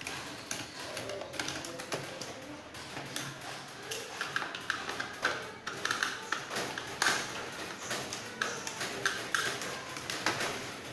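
Light plastic clicks and taps as the Subotech BG1522 M151 RC jeep's plastic body and chassis are handled and turned over, over background music.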